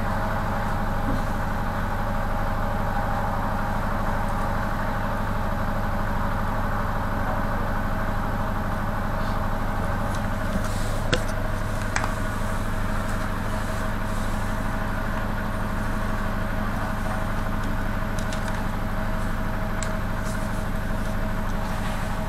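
Steady engine drone and road noise heard from inside a route-taxi minibus, with a couple of sharp clicks near the middle.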